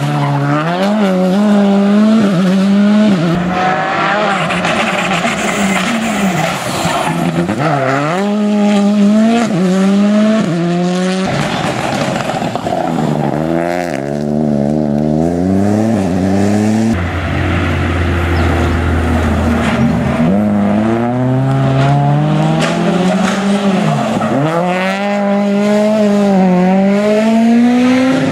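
Rally car engines revving hard as the cars take a bend one after another: the pitch climbs and drops again and again with gear changes and lifts off the throttle.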